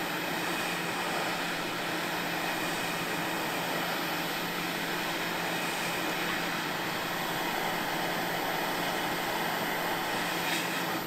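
Quick 861DW hot air rework station's handpiece blowing a steady rush of hot air with a low hum underneath, at airflow setting 70, heating a surface-mount chip to melt its solder.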